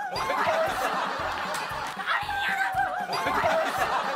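A group of people laughing and shrieking together, several voices overlapping with wavering pitch.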